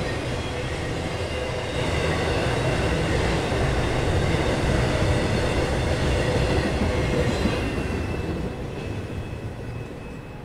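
Norfolk Southern intermodal freight train passing close by, its steel wheels rumbling on the rails with a faint high steady ringing. The sound fades over the last few seconds as the end of the train goes by.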